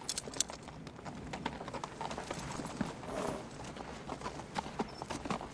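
A horse walking, its hooves clopping unevenly on the ground, with many small knocks and clicks.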